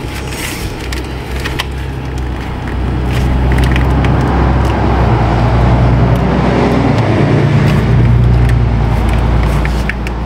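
Low engine rumble of a nearby motor vehicle: it grows about three seconds in, holds, and fades near the end. Light clicks and rustles of hands handling wiring run through it.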